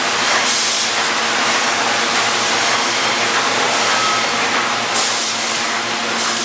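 Automated pressure-relief-valve assembly machine running: a steady mechanical hum and clatter with constant air hiss, and a few short louder puffs of hissing air.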